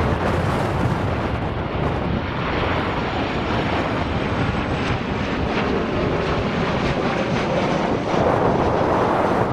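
Jet airliner's engines heard as a loud, steady rushing noise that swells slightly near the end, with wind buffeting the microphone.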